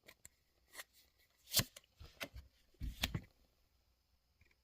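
Trading cards being slid and flicked in the hands as a pack is flipped through: a handful of short card snaps and rustles, the loudest about one and a half and three seconds in.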